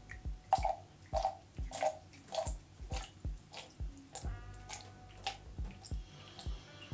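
Water dripping and shaken from a soaked shaving brush into a plastic measuring cup: a run of single plops, about one every half second, as the brush is flicked to drive out its water before lathering hard soap.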